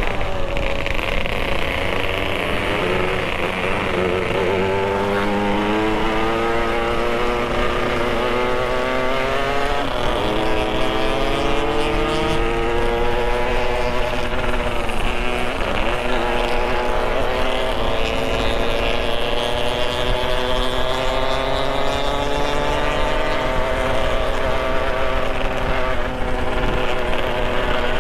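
Motorcycle engine running while being ridden, its pitch climbing and dropping again and again as the throttle and gears change.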